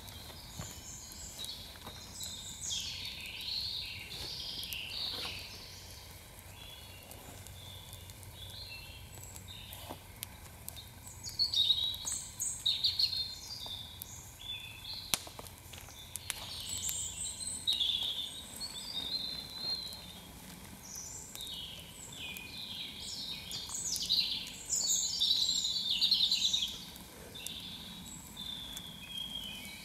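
Repeated high chirping and trilling calls of small animals in the woods, coming in clusters throughout, with a few sharp pops from a burning campfire.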